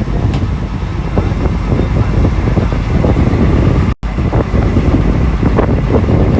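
Steady low rumble of a boat's engine with wind buffeting the microphone; the sound cuts out for an instant about four seconds in.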